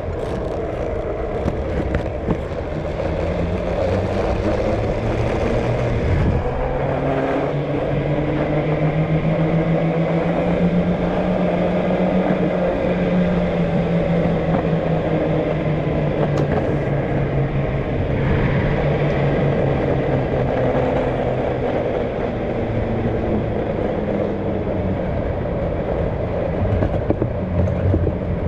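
Car engine and road noise running steadily, the engine's pitch rising slowly and then easing back down, with a low thump about six seconds in.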